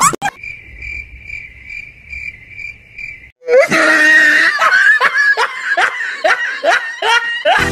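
A steady high chirping tone pulsing about two to three times a second, then, after a short break, a loud run of high-pitched laughter, each 'ha' falling in pitch, about two to three a second.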